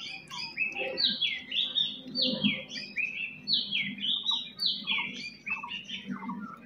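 Small birds chirping in a quick, continuous run of short, high, downward-sliding notes, several birds overlapping.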